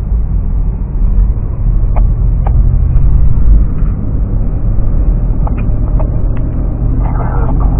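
Car cabin noise while driving: a steady low rumble of engine and tyres on the road, with a few faint clicks.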